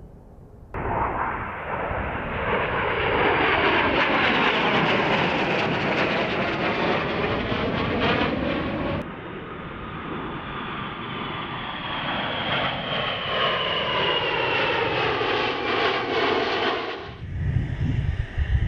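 AV-8B Harrier II jets flying overhead, a loud jet-engine roar with a whine that slowly falls in pitch as they pass. The sound is two flyover recordings spliced together: it starts abruptly about a second in, jumps at a cut about halfway through, and stops abruptly near the end.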